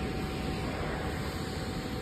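Sugar pulverizer (grinding mill) running steadily: a dense, even machine noise with a thin steady whine through it.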